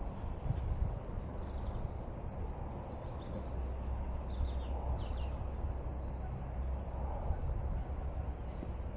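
Outdoor background noise: a steady low rumble, with brief high bird chirps now and then.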